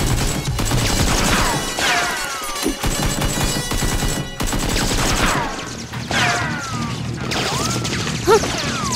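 Rapid gunfire sound effects in a dense volley, with several falling whistling zips like ricochets, over background music.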